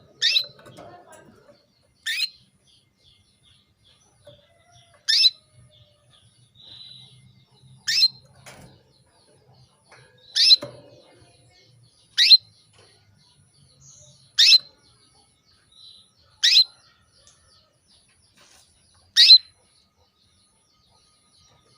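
Female domestic canary giving single short chirps, each sliding down in pitch, about nine of them spaced two to three seconds apart. This is the call of a hen in breeding condition calling to males, used to get male canaries into breeding form and singing.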